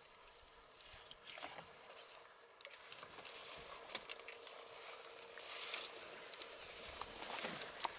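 Rustling and crackling of dry grass and twigs as African elephants shift about in it, with scattered sharp clicks, growing louder from about three seconds in.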